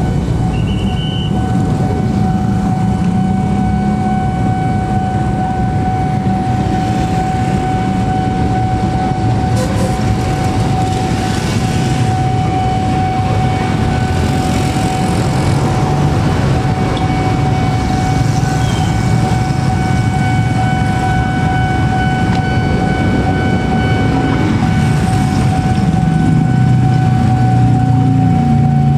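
Level-crossing warning bell ringing steadily over the low rumble of waiting motorcycles and auto-rickshaws, the engine rumble growing louder near the end.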